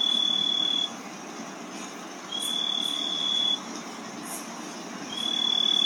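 A night insect trilling in the forest: long, steady high-pitched trills, each lasting just over a second and repeating about every three seconds, over a background hum of other insects.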